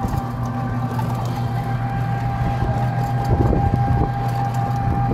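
A small passenger vehicle's engine running steadily at road speed, heard from inside the vehicle, with a steady low hum and a fainter steady whine above it.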